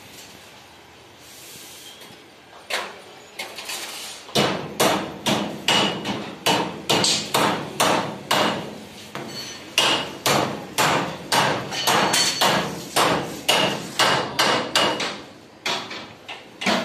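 Hammer repeatedly striking sheet steel on a tractor trolley body, about two or three ringing metallic blows a second. The blows start a few seconds in after a quieter stretch.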